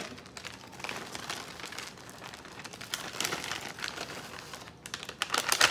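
Plastic bag of caramel baking chips crinkling as it is shaken and emptied, with the chips falling out as a run of small clicks; the densest, loudest flurry comes near the end.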